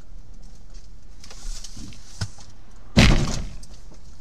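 Steady low rumble of a car in motion, then a sudden loud bang of a vehicle collision about three seconds in, dying away within half a second.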